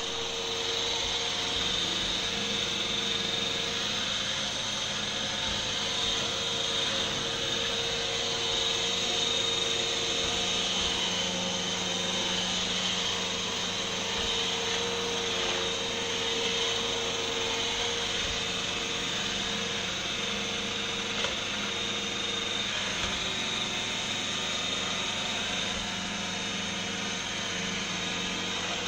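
iRobot Roomba i7 robot vacuum running steadily, its suction motor whining over the whirr of its brushes on the floor, with one light knock about two-thirds of the way through.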